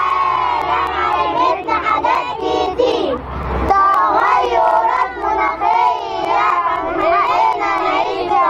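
A group of children singing together, many voices at once.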